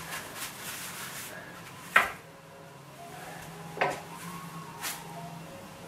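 Paintbrush stroking varnish along a pine bed-frame rail, a soft brushing rub, with a few light knocks and clicks, about two seconds in and twice more near the end.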